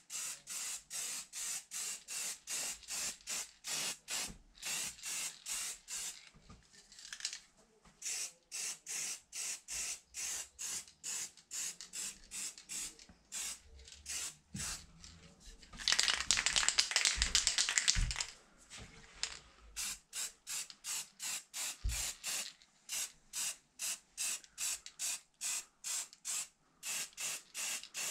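Aerosol spray-paint can fired in quick short spurts, about three a second, dabbing a camouflage pattern onto plastic. About two-thirds of the way through comes one longer spray of about two seconds.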